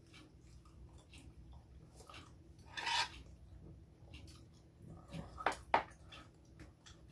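Eating at the table: utensils clinking and scraping against dishes, with a short scrape about three seconds in and two sharp clicks in quick succession a couple of seconds later.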